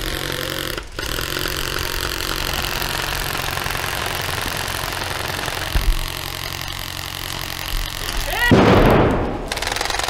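Airsoft guns firing on full auto in rapid, continuous rattling bursts, with a brief loud voice near the end.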